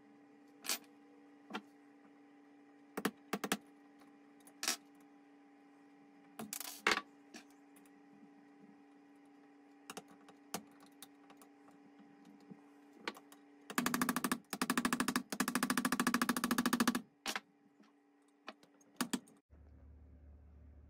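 Hand tools clicking and tapping on the metal parts of a Denso smog pump being reassembled, with about three seconds of rapid, continuous clicking in the middle. A steady hum runs underneath and turns into a lower hum near the end.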